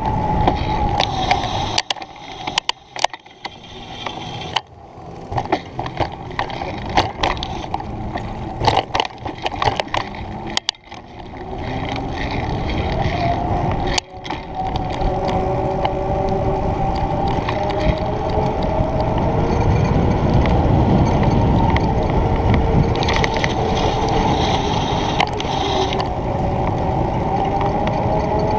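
Wind buffeting a bike-mounted camera's microphone, with tyre rumble from a road bike riding a paved path downhill. Sharp knocks and uneven bumps come through the first ten seconds or so. After that the rumble turns steady and louder, and a faint whistle rises in pitch before holding as speed builds.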